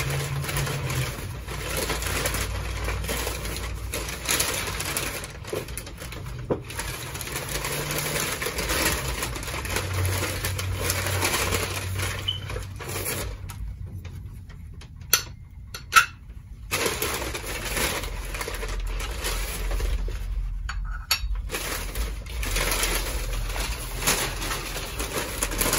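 Packing paper rustling and crinkling as porcelain cups and saucers are unwrapped. A little past halfway come two sharp clinks of porcelain.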